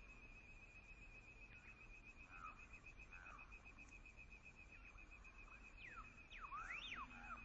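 Faint bird calls: a couple of soft notes a few seconds in, then several quick sweeping whistled calls near the end. A steady, fast-pulsing high drone runs underneath.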